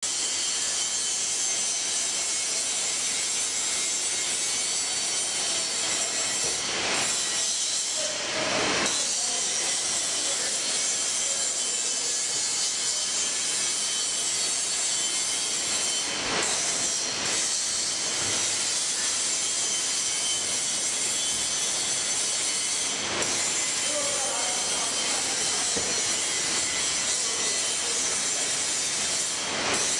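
Octans-126T automatic thermal laminator running while laminating printed sheets with OPP film: a steady hissing, rubbing machine noise from its rollers and sheet transport. A few brief knocks come through it at scattered moments.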